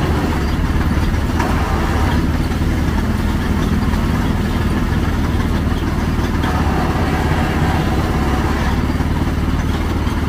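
Motor of a sugarcane juice press running steadily, a low engine-like hum, while cane stalks are fed through its crushing rollers.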